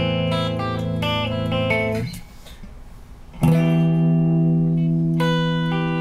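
Electric guitar played through Fairfield Circuitry effects pedals: held notes rich in overtones die away about two seconds in, then after a short gap a new note is struck and held, with higher notes changing over it near the end.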